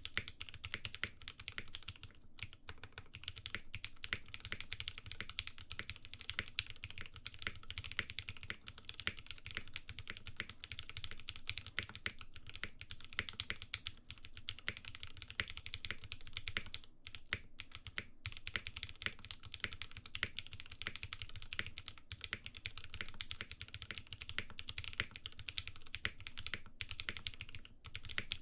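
Continuous fast typing on a Frog TKL custom mechanical keyboard with Gateron Ink linear switches and GMK keycaps: a dense stream of keystrokes with a few brief pauses.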